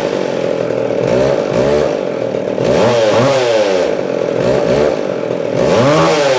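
McCulloch Eager Beaver 3.7 two-stroke chainsaw engine running, revved up and let back down to idle about three times.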